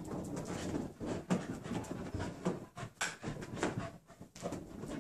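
Small dog scrambling and darting about on carpet in wild play, its paws scuffing and thudding in irregular bursts.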